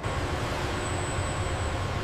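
Steady industrial rumble and hiss of a large assembly hall, with a faint high-pitched whine above it.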